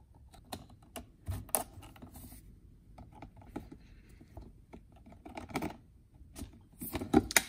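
Pliers gripping and tugging at the pleated paper filter media packed tight inside an aluminium fuel-filter housing: irregular scratches and small metal clicks, with a few louder clicks near the end. The media is stuck fast and does not come out.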